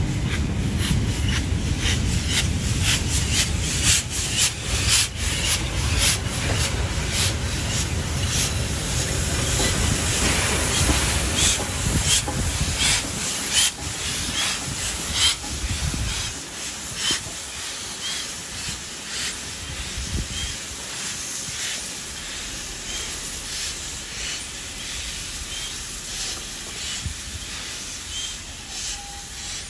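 Heritage passenger train rolling past with a low rumble and repeated wheel clacks over the rail joints, followed by the AD60-class Beyer-Garratt steam locomotive 6029 with steam hissing from its cylinders. The rumble drops away about halfway through as the train moves off, leaving the hiss and softer clacks.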